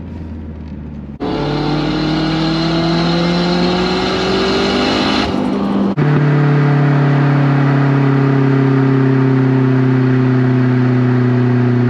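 Honda H22 four-cylinder's exhaust with the car under way. After a quieter first second, the note jumps in loudness and climbs in pitch under acceleration for about four seconds. About six seconds in it breaks briefly and drops to a lower, steady, slowly falling note.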